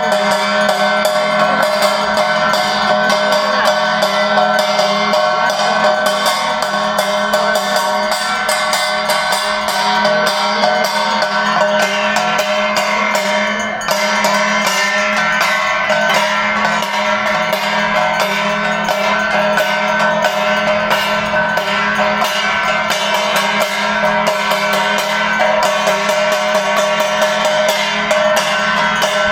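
Arati devotional music: fast, continuous percussion with steady ringing bell-like tones. The sound dips briefly about halfway through.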